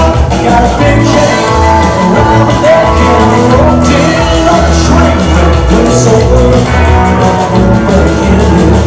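Live rockabilly band playing: electric guitar and upright double bass driving a steady beat, with a man singing into the microphone.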